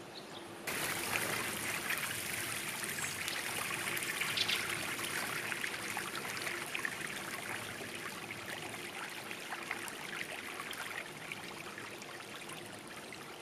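Water churned by a dense shoal of small fish at the surface of shallow pond water: a continuous patter of many tiny splashes. It starts suddenly about a second in and slowly fades toward the end.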